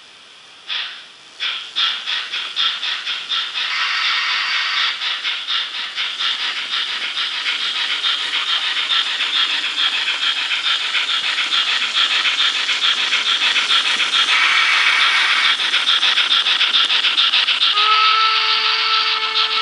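HO-scale DRG Class 44 steam locomotive model's DCC sound decoder playing steam exhaust chuffs. The chuffs start about a second apart and quicken into a fast, even beat as the model pulls away. Near the end a steam whistle sounds, a steady tone of several pitches.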